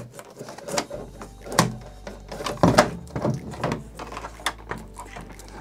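Glass top panel of a Bambu Lab P1S 3D printer being lifted off and handled: a string of irregular knocks and clacks as it comes free of the frame.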